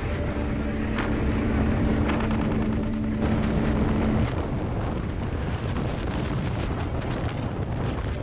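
Trail motorcycle running along a rough rocky track, heard from on the bike, with a dense low rumble throughout; the engine holds one steady note for about the first four seconds, then fades into the rumble.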